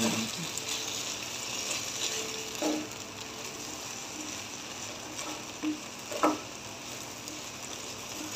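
Scrambled eggs sizzling in a nonstick frying pan as a silicone spatula stirs them, with a few short scrapes of the spatula against the pan.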